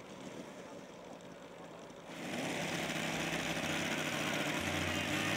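Engine of a large-scale RC Polikarpov Po-2 model biplane running steadily on the ground, its propeller turning. The sound jumps louder and closer about two seconds in, then holds steady.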